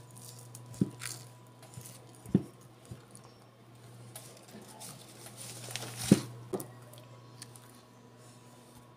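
A small child chewing and biting a piece of toast, with a few short sharp knocks and bumps, the loudest about six seconds in, over a steady low hum.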